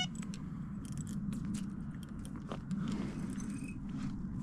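Irregular small clicks and crackles of a fishing rod and reel being handled as the angler picks up the rod after a bite, over a steady low hum.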